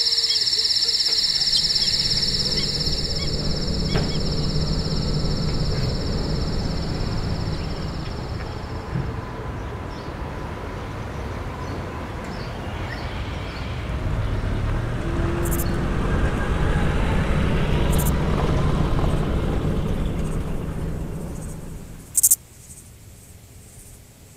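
Layered ambient soundscape: a steady high insect trill for the first few seconds gives way to a dense low rumble of city traffic. The traffic swells and then fades out about 22 seconds in, where a single sharp click is heard.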